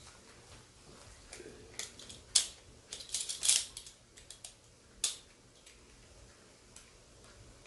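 Handling clicks and knocks from a camera as it is turned over and fitted to a tripod mount: a few sharp clicks, then a quick run of clatter about three seconds in and one more click near the five-second mark.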